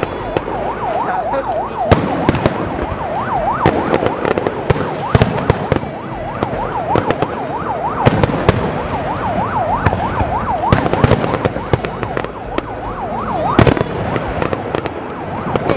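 Aerial fireworks display: a dense stream of shells bursting with bangs and crackles, the loudest about two seconds in and again near the end. Over the bangs runs a constant warbling whistle whose pitch rises and falls rapidly, typical of whistling firework effects.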